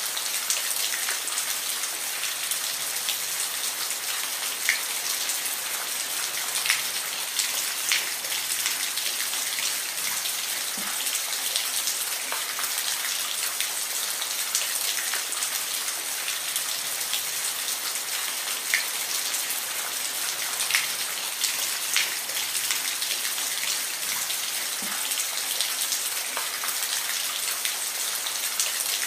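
Steady rain falling, a dense even hiss with individual drops ticking sharply on a surface here and there.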